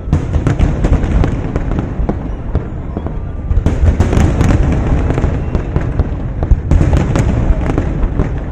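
Fireworks display in full barrage: many shells bursting in quick succession, dense crackling and popping over a constant low booming. It grows denser and louder about three and a half seconds in.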